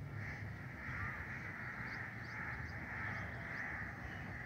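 Faint outdoor ambience of crows cawing in the distance over a low rumble, with a faint, regular high chirping.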